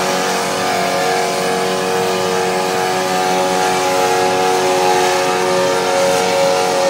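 Turbocharged Detroit Diesel engine of an Oliver pulling tractor running loud and steady under pulling load, with an even pitch that hardly changes; the governor is not yet fully open.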